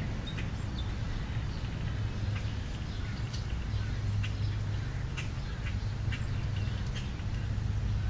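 Short, faint bird chirps and calls scattered throughout, with birds feeding at a pile of food scraps on a lawn, over a steady low rumble.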